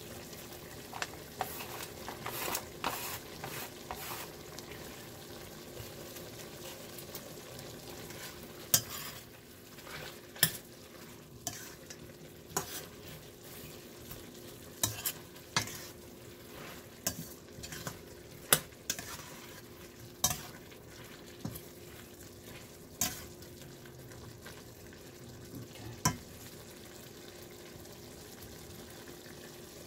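Chicken pieces and onion sizzling in a stainless steel pot while a metal spoon stirs them, clinking against the pot every second or two. The clinks stop near the end, leaving the sizzle.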